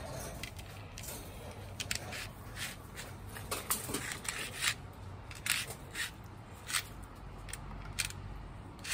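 A handheld tool working the end of a copper refrigerant tube, making short scraping clicks at irregular intervals, about one or two a second.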